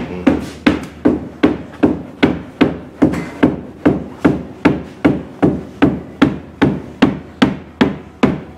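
A mallet tapping steadily on a 1937 Cord's windshield frame, about three taps a second, to seat the new windshield. The tapping stops near the end.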